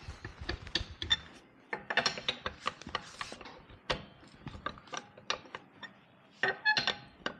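Irregular ratcheting clicks and metal clinks of a hand wrench being worked on a car's wheel nuts to take the wheel off, with a burst of clinks near the end.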